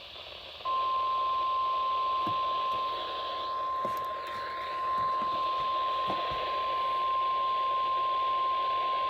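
NOAA Weather Radio 1050 Hz warning alarm tone: a single steady pure tone that starts under a second in and holds for about nine seconds, over steady radio static. It signals that a weather warning broadcast is about to follow.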